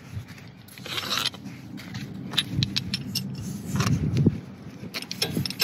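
Hands pulling apart sway bar end link pieces: scraping with scattered light metallic clicks and clinks.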